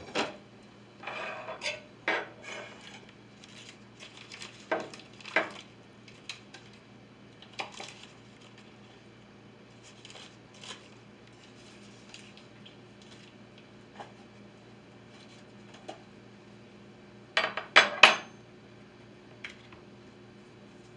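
Dishes and cutlery clinking and knocking on a kitchen counter as pancakes are plated: irregular clicks and clatters, with a quick run of louder knocks near the end.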